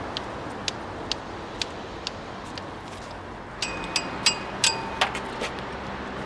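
Light ticking taps about twice a second over a steady hiss, then a quick cluster of louder metallic clinks with a brief ringing about four seconds in.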